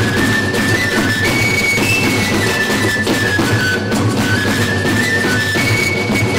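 A live folk band playing a lively dance tune: a high, stepping melody line over steady drumming and string accompaniment.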